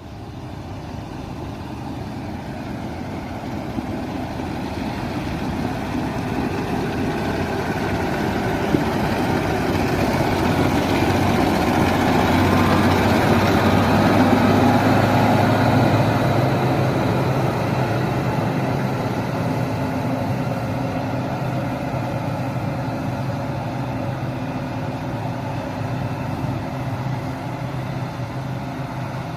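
Diesel engine of a JCB excavator running steadily, growing louder toward the middle and then easing off.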